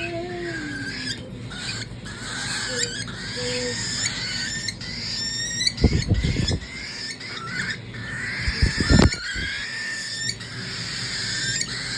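Baby cockatiels chirping and calling continually in short, wavering calls. Two brief low fluttering bursts come about six and nine seconds in.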